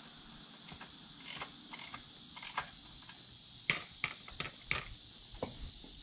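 Sharp metallic clicks and taps from a hand tool working the rear axle and chain adjusters of a BMW F850GS, four louder ones in quick succession a little past halfway. Under them is a steady high hiss of insects.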